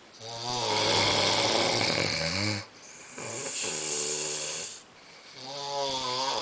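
A man snoring loudly: three long snores of about two seconds each, each with a buzzing, pitched tone and short pauses between them.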